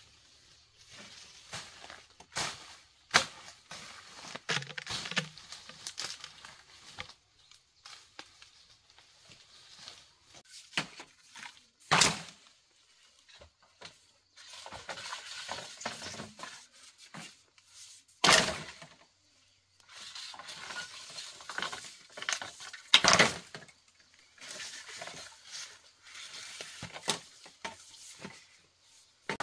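Cut green bamboo poles being dragged through brush and laid on a pile: hollow wooden knocks and clatters as poles strike each other, several of them sharp and loud, with rustling of leaves and stalks in between.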